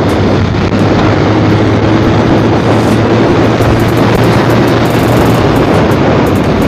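Italika RT180 motorcycle's single-cylinder engine running steadily under a loud, even rush of noise. The owner says the engine no longer knocks or rattles now that the rod knock has been repaired.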